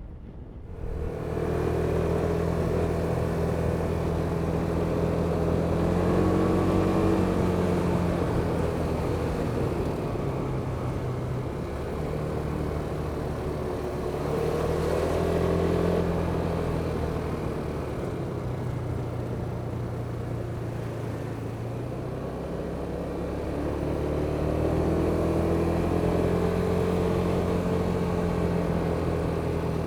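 Kymco Superdink 300 scooter's single-cylinder four-stroke engine under way: it swells about a second in, then runs steadily, its pitch rising and falling gently a few times as the throttle is opened and eased.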